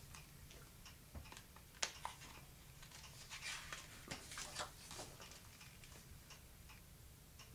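Faint rustle of a paperback picture book's page being turned, heard a little past the middle, with a few soft clicks and taps around it.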